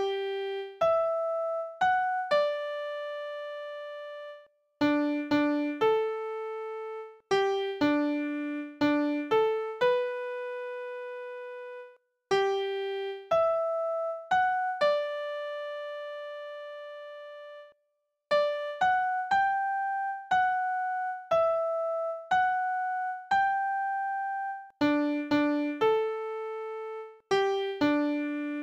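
Slow melody on an electric piano-like keyboard, one note at a time, each note struck and left to fade, in short phrases with brief silent pauses between them.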